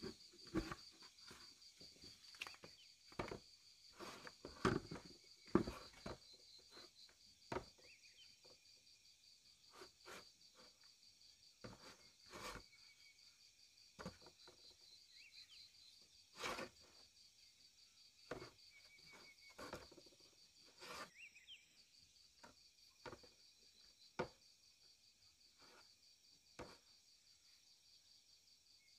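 Insects keep up a steady, high, fast-pulsing trill, which breaks off briefly a little past the twenty-second mark. Over it come scattered light knocks and taps of wooden planks being handled and set in place, most often in the first few seconds.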